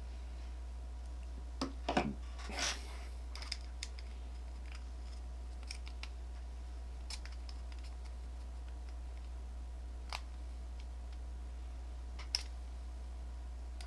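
Small plastic parts and tools being handled: a few sharp clicks and taps with a short scrape about two seconds in, then single clicks near the end, over a steady low hum.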